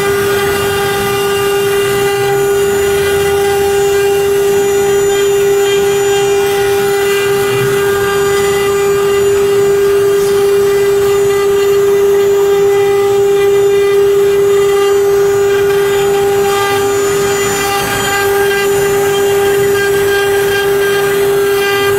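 Spindles of a multi-head CNC router running at speed while their engraving bits carve into MDF board: a steady, unbroken whine.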